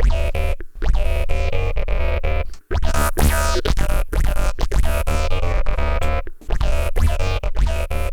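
A Blipblox synthesizer sequence playing through a modular Eurorack patch of envelope-driven resonant filters and a phase shifter: a looping electronic pattern over deep bass, with a filter sweep about three seconds in and brief drop-outs between phrases.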